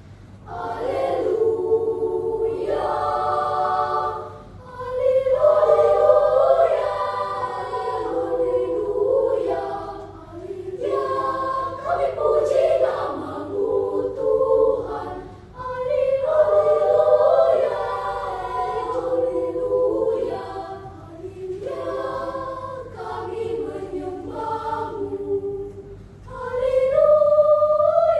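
Choir singing, in phrases of several seconds separated by brief dips where the voices breathe or change phrase.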